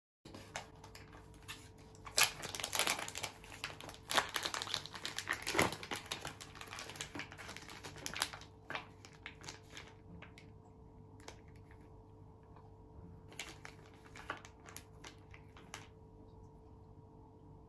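Thin plastic salami packaging crinkling and crackling as it is opened and the slices are peeled out, busiest in the first half, then a few scattered crackles later on.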